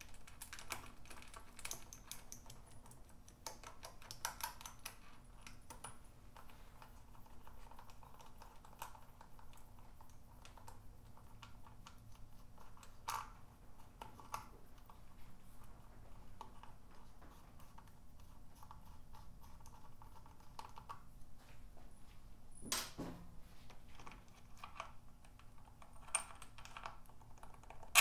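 Socket ratchet clicking in short runs as bolts on a Honda CB550 cylinder head cover are worked loose, with a few sharper metallic knocks and clinks of tools and bolts.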